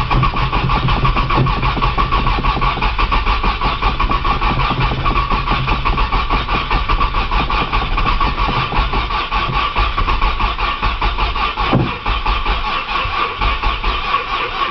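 1995 Nissan Maxima's 3.0 V6 being cranked over by its starter motor in a long, steady, rhythmic crank, with a brief knock about twelve seconds in. The engine does not catch: a cold hard-crank no-start.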